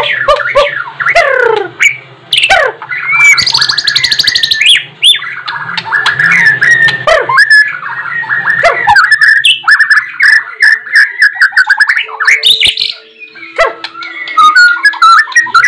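White-rumped shama singing loudly: a fast, varied song of rising and falling whistles, quick trilled phrases and a harsh buzzy rattle about four seconds in. The song is full of learned 'isian', calls mimicked from other birds.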